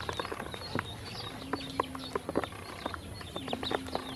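Ducklings pecking seed from a plastic basin: quick, irregular beak taps on the plastic, with short high-pitched peeps.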